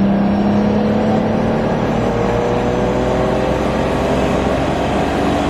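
Turbocharged BMW M50 straight-six pulling under load as the car accelerates, its engine note rising slowly in pitch, heard from inside the cabin. It is a tuning run on low boost, about 0.4 bar.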